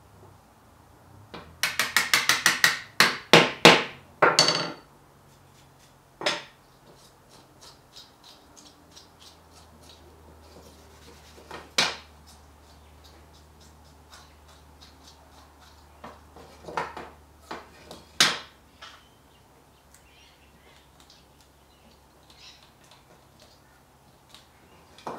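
A quick run of sharp wooden taps and knocks, then a few single clicks spaced several seconds apart: small hoop pine kumiko pieces being tapped and fitted into a hexagonal lattice panel.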